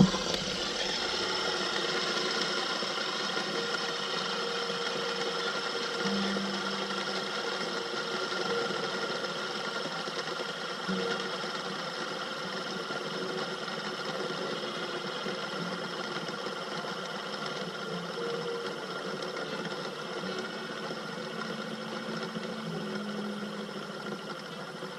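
Fidget spinner spinning freely on its bearing: a steady whirring with several steady high tones, slowly getting quieter as it winds down.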